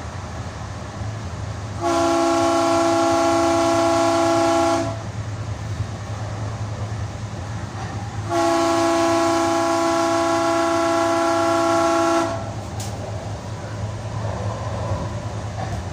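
Light rail train's multi-tone horn sounded in two long blasts, about three and four seconds, as it approaches a grade crossing. Between and under the blasts is the steady rumble of the train running, heard from inside the passenger car.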